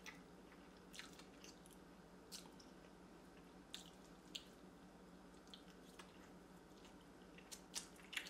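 Faint, wet chewing and mouth smacks of someone eating saucy noodles, with scattered soft clicks about once or twice a second.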